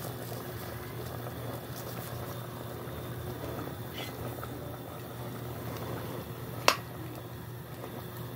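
Pot of pork humba bubbling at a boil over a steady low hum, with one sharp knock about two-thirds of the way through.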